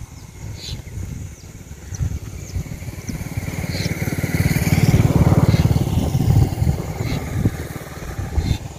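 A motor vehicle passing on the road: its engine grows louder to a peak about five seconds in, then fades away.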